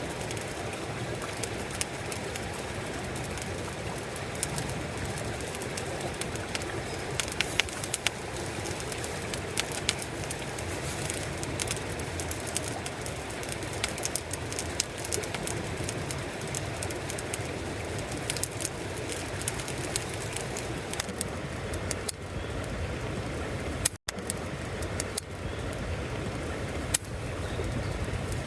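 Wood fire burning in a steel fire pit, crackling with scattered sharp pops over a steady low rush of noise.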